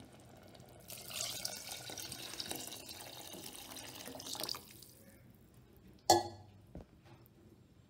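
Water poured in a steady stream into a pressure cooker of rice, peas and fenugreek leaves, splashing for about four seconds from about a second in. A single sharp knock follows about six seconds in.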